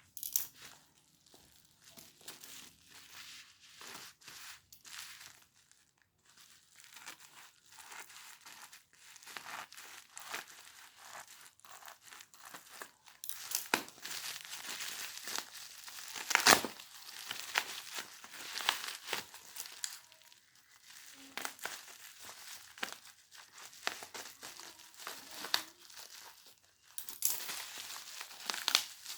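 Packaging crinkling and rustling in irregular bursts as it is handled and opened, with sharp cracks; the loudest crack comes a little past halfway.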